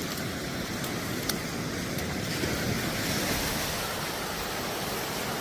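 Sea waves washing onto a beach in a steady rush, with wind buffeting the microphone and a few faint clicks in the first two seconds.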